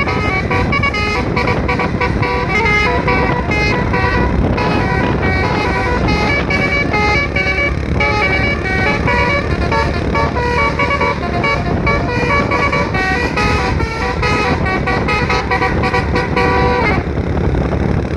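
Basuri telolet horn, a set of roof-mounted trumpet horns on a vehicle, playing a fast melody of short stepping notes over a low rumble. The melody thins out about seventeen seconds in.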